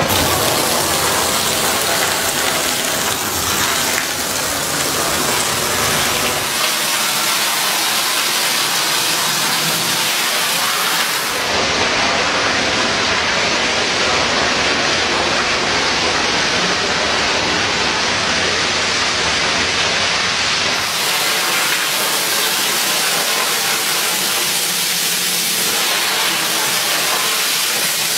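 Water spraying from a hose onto a soaked rug, a steady loud hiss and splash: the first rinse that flushes out loose dry soil and saturates the rug before scrubbing. The hiss turns duller for a stretch in the middle, then brightens again.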